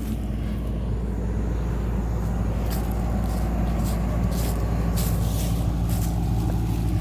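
Tractor engine running steadily, growing gradually louder, with a few faint clicks over it.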